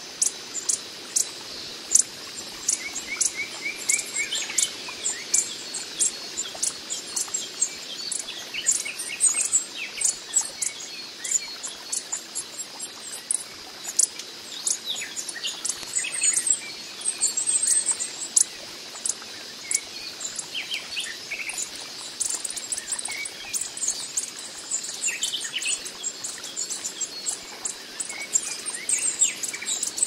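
Coppery-headed emerald hummingbird calling: an irregular, rapid run of short, sharp, high-pitched chips, over a steady high insect hum.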